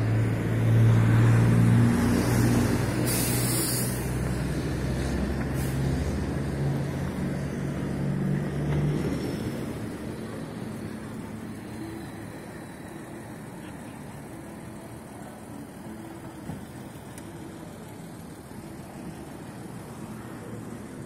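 City street traffic: a vehicle engine running loud and close for the first nine seconds or so, with a short hiss about three seconds in, then fading to a quieter, steady traffic hum.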